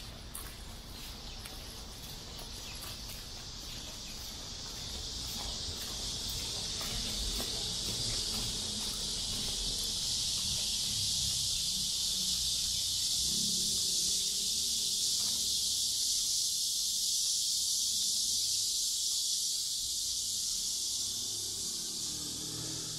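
Chorus of cicadas, a steady high-pitched drone that swells over the first several seconds and then holds.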